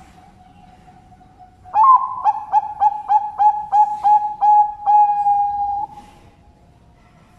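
Zebra dove (perkutut, Bangkok-bred) cooing: a rising opening note, then a rolling series of about nine short staccato coos, ending in one long held coo.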